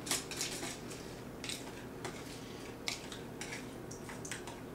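A utensil scraping and tapping the inside of a bowl as thick cream of mushroom soup thinned with broth is scraped out into a pressure cooker pot: a series of short, irregular scrapes and clicks.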